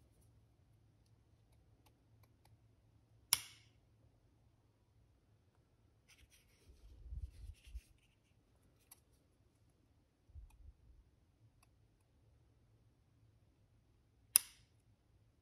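Scissors snipping leather stitching thread: two sharp snips, about three seconds in and near the end, with soft handling rumbles of the leather piece in between.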